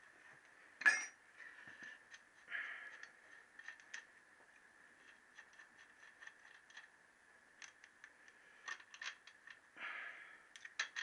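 Small metallic clicks, scrapes and rattles of a spanner and loose fittings as the cap nuts of a Triumph T120R's rocker oil feed pipe are undone and the pipe is lifted off the rocker boxes. A sharper metal knock comes about a second in, and a quick cluster of clicks near the end.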